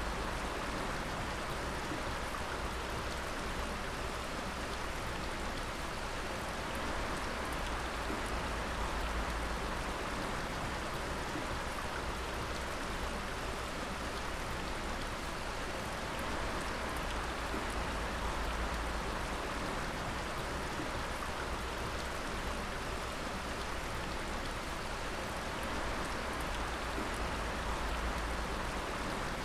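Water dripping steadily in many drops at once, a continuous rain-like pattering over an even background rush of running water.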